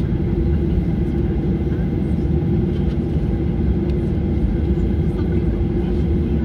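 Boeing 737-800's CFM56-7B engines running steadily at low thrust, heard inside the cabin as an even, deep rumble with a steady hum while the airliner rolls slowly on the ground before its takeoff roll.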